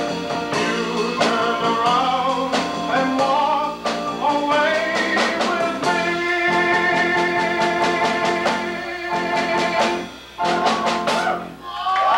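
Live small band, drums and electric guitar, backing a male singer, with a long held note through the middle; near the end the song closes on a few drum hits.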